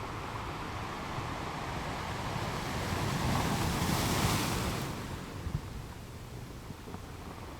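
Ocean surf: a wave swells, breaks with a rush of hiss about three to four seconds in, and drains away.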